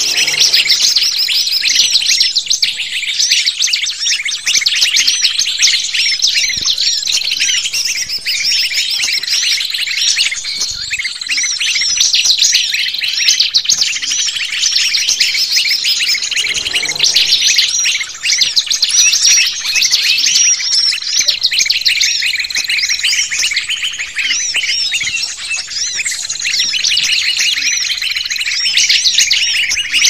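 Bird-lure recording of many small songbirds calling at once: a dense, unbroken chatter of quick high chirps and twitters, with a thin steady high note that comes and goes. It is a trapping lure meant to draw small birds in.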